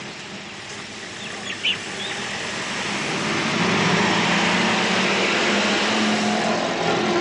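An old army truck's engine running as the truck drives up and passes close, growing steadily louder over the first few seconds and then holding. A few short bird chirps sound about a second in.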